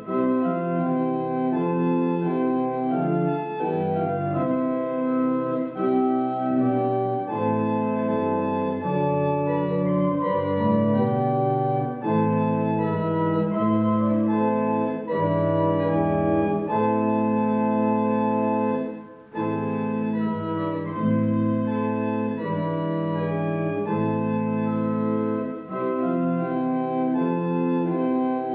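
Church organ playing a hymn tune in slow, sustained chords that change about once a second, with a brief break about two-thirds of the way through.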